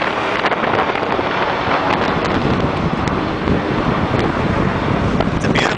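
Rumbling jet roar of a four-engine Boeing 747 passing low overhead on landing approach, mixed with wind buffeting the microphone.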